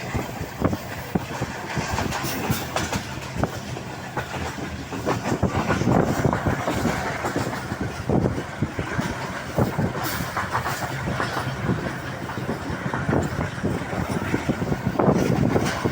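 Train running on rails: a steady rumble with wheels knocking irregularly over the track.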